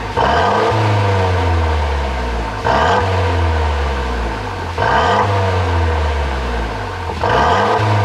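Mercedes-Benz W205 C200's turbocharged four-cylinder engine, revved sharply about four times, each rev falling away over a couple of seconds. The exhaust is tuned to pop and crackle on the overrun.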